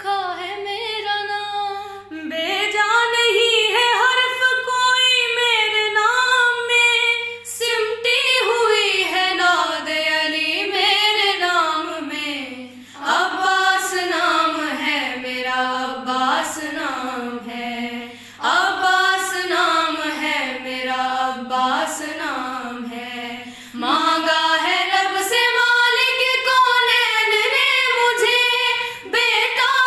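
Young girls' voices singing an Urdu manqabat together in long, melismatic phrases with short breaths between them, over a faint steady low hum.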